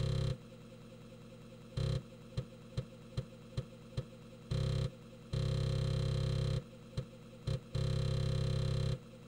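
Emulated floppy disk drive noise during disk access: the drive runs in stretches of about half a second to a second that start and stop abruptly. In the middle comes a run of five short head-step clicks, about two and a half a second. This is the sound of the compiler loading its parser stage and reading its table from disk.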